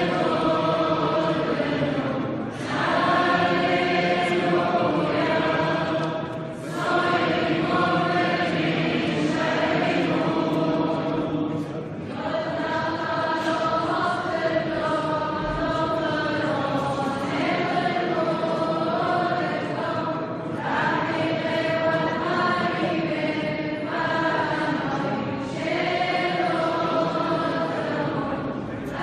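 Syriac Orthodox church choir chanting a hymn, many voices together, in phrases a few seconds long with short breaks between them.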